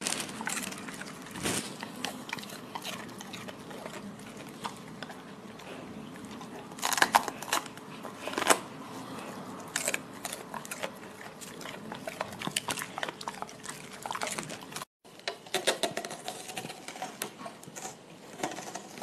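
A golden retriever biting and chewing raw vegetables: irregular crisp crunches as it gnaws a green bell pepper. After a brief gap about three-quarters of the way through, it crunches into a head of napa cabbage.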